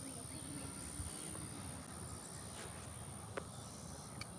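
Faint outdoor ambience with a steady high-pitched insect drone, likely crickets, and a few faint clicks.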